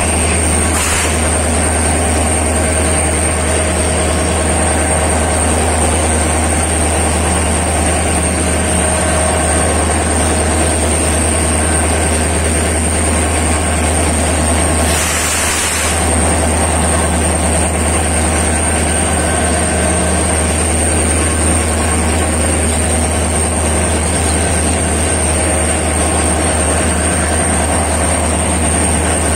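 Passenger train hauled by a WDP4D diesel locomotive arriving at a station platform: a loud, steady low engine hum under a thin high whine, with a brief rush of noise about a second in and again around fifteen seconds.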